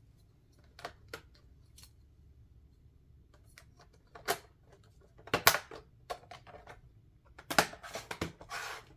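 A plastic liner being fitted back onto an MSI GF63 Thin laptop: scattered sharp plastic clicks and taps, the loudest about five and a half seconds in, then a brief rubbing scrape near the end.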